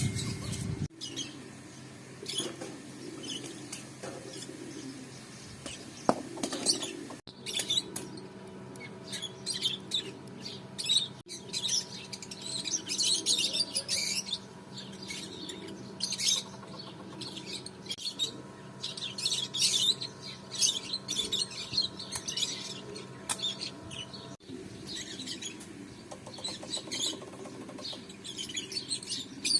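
Small birds chirping and tweeting, many short high calls coming in dense clusters, over a steady low hum.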